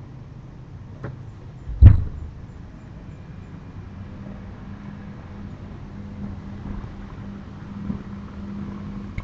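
A single loud bang about two seconds in, deep and heavy with a short ringing tail, after a faint click; from about four seconds on a steady low hum runs underneath.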